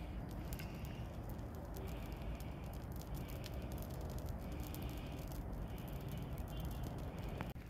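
Dry brush burning in a metal fire bowl, crackling with many sharp pops over a low steady rumble.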